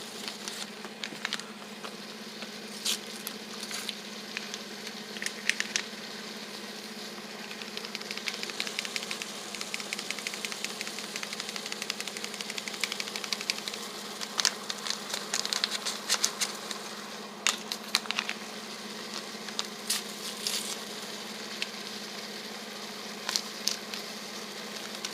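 Food frying in a pan, with irregular crackles and pops that come thickest in the middle stretch, over a steady low hum.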